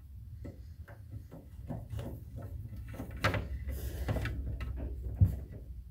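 18-gauge six-conductor thermostat wire being fed off its spool and pushed down through a hole drilled in a wooden top plate. It makes a run of small scrapes and taps over a steady low hum, with a sharper knock about five seconds in.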